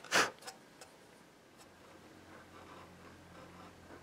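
A short scrape of a small hand blade on wood at the start, followed by a few light ticks, then quiet room tone with a faint low hum.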